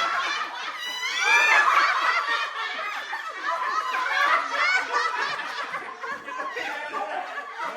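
A group of people laughing together over overlapping chatter, with a burst of high-pitched laughter about a second in.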